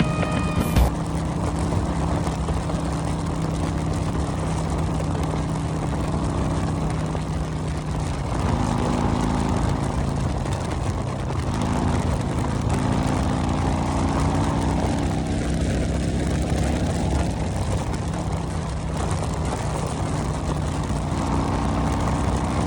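Harley-Davidson Road Glide's V-twin engine running under way with heavy wind rush, heard from inside the rider's helmet; the engine pitch shifts a few times partway through. A sharp click about a second in.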